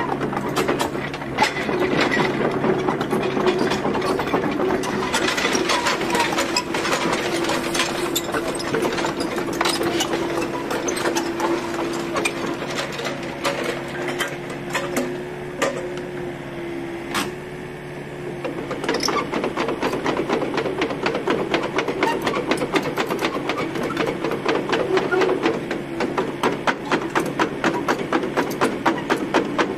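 Komatsu PC40MR-2 mini excavator's diesel engine running under hydraulic load, with rapid mechanical clatter as the boom and swing are worked, and a steady hydraulic whine in the middle stretch. Near the end a regular clacking of about four a second sets in as the tracks are raised off the ground.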